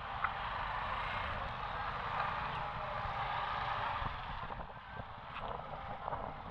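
Busy street traffic: motorcycle engines and passing vehicles make a steady noise that eases a little about four seconds in, with a few short clicks.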